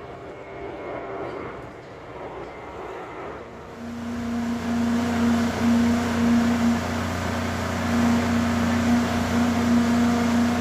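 An engine running steadily with a low hum; about four seconds in it grows much louder.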